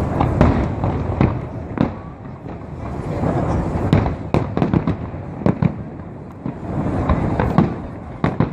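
Aerial fireworks display: a rapid run of shell bursts and sharp bangs over a continuous rumble of overlapping explosions, with quick clusters of crackling pops about halfway through and again near the end.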